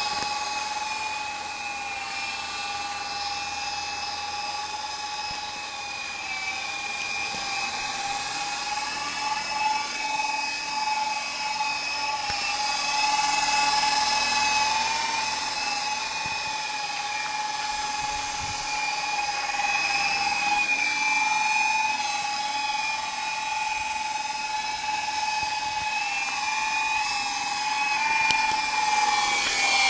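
Small electric RC helicopter's motor and rotors whining steadily, the pitch wavering slightly as the throttle shifts.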